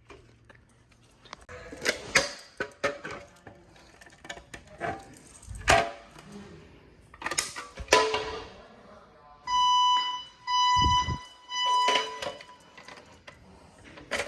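Scattered knocks and clicks, then, about nine and a half seconds in, an electronic fire alarm sounds three long, even beeps of about a second each with short gaps between them.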